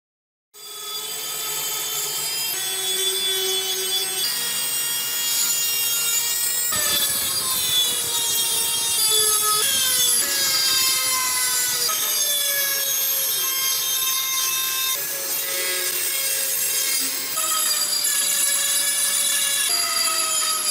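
High-speed rotary tool with a small abrasive cut-off disc grinding grooves into the rusty steel of a kukri blade. Its whine dips in pitch as the disc bears on the metal and recovers.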